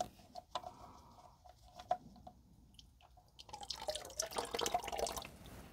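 Hot engine oil dripping, then running out of the sump into a plastic drain bucket as the sump plug is unscrewed by hand. A few light ticks and drips at first, then a denser pattering splash from about three and a half seconds in as the oil starts to flow.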